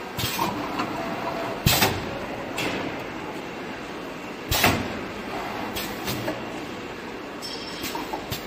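Six-head oil filling machine running: a steady mechanical hum with sharp clunks and short air hisses every second or two as the machine cycles through filling and moving bottles. The loudest clunks come near two seconds and near five seconds in.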